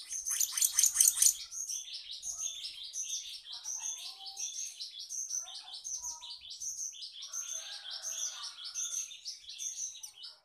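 Black-naped monarch (kehicap ranting) calling. It opens with a loud, fast run of repeated notes lasting about a second and a half, followed by a steady stream of short, high chirps.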